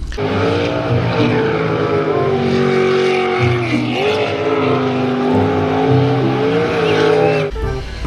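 Jet sprint boat engine running hard at high revs, with a rushing spray noise over it. The pitch dips briefly about halfway through as the throttle eases, then climbs again.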